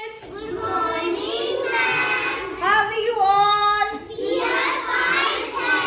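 Young children singing, with some notes held long.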